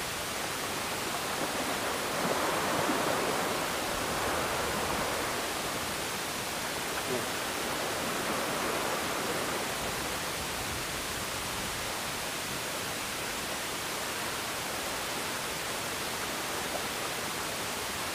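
Steady wash of sea surf against the concrete blocks of a breakwater, swelling a little about two seconds in and again around eight seconds.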